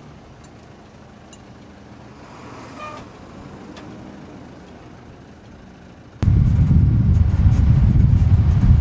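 Vehicle engine running low and steady, with a short tonal sound about three seconds in; about six seconds in a much louder, rough low rumble starts abruptly and carries on.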